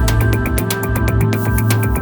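Electronic background music with a steady, fast beat of high clicks over sustained synth tones.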